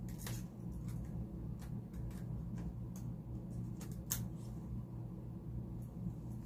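Scattered light clicks and taps of hands handling a compact digital camera and its battery pack, one sharper click about four seconds in, over a steady low hum.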